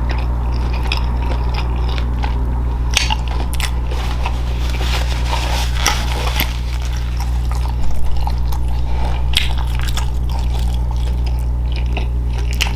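Close-miked eating: wet chewing, mouth smacks and crunchy bites at an irregular pace, over a steady low hum.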